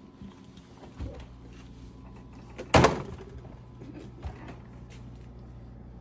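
Refrigerator door being opened, with one loud thump nearly three seconds in. A steady low hum starts about a second in.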